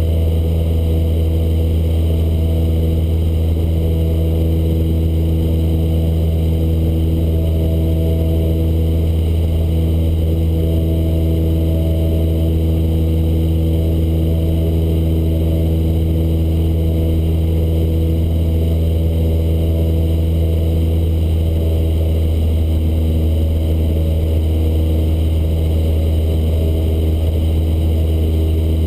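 Cessna 152's four-cylinder Lycoming O-235 engine and propeller droning steadily in flight, heard inside the cabin as a loud, even low hum.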